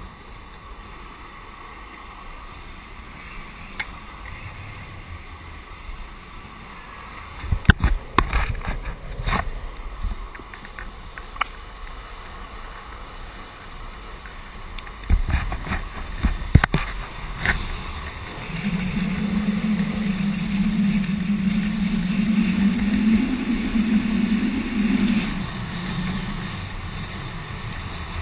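Longboard wheels rolling fast on asphalt with wind buffeting the microphone. Clusters of sharp knocks come about 8 and 16 seconds in, and from about 19 to 25 seconds the ride grows louder with a steady low hum before easing off.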